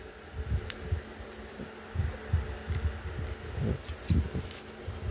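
Handling sounds from building with plastic toy bricks: repeated dull low knocks of hands and parts against the tabletop and a few sharp plastic clicks. There is brief papery rustling of the instruction sheet near the end, all over a steady low hum.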